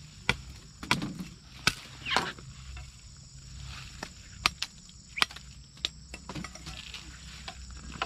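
A series of sharp, irregular knocks and snaps, about a dozen over several seconds, with a steady low rumble underneath.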